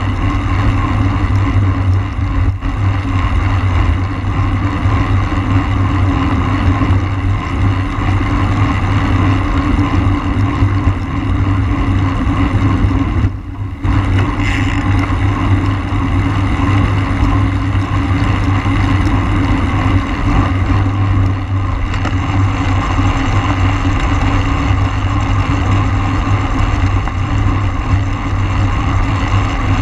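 Wind rushing over the microphone of a camera riding on a racing road bike at speed: a loud, steady rush that dips briefly about halfway through.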